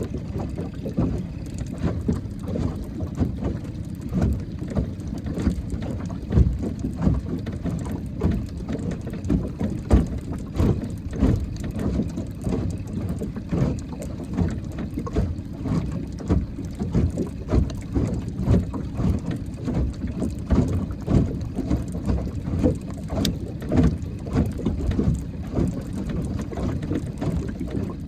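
Wind buffeting the microphone on a small fishing boat on open water: an uneven low rumble that swells and drops, with scattered small knocks and ticks.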